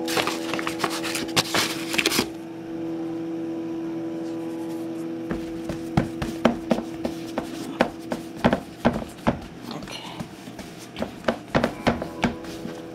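Hands rubbing, patting and pressing floured pizza dough on a metal baking tray: a stretch of rubbing and scraping at the start, then a run of quick soft pats and taps from about halfway through. A steady background tone runs underneath and fades out about two-thirds in.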